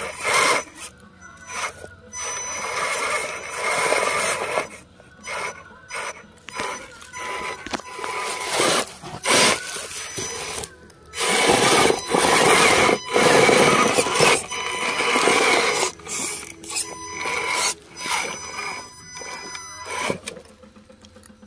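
Redcat Gen8 RC rock crawler's electric motor and gear drivetrain whining in uneven on-off bursts of throttle as it climbs a rock ledge, with its tyres scraping over the rock.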